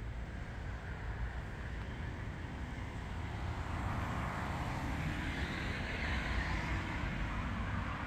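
Road traffic: a steady low rumble, with a passing vehicle's noise swelling from about halfway through.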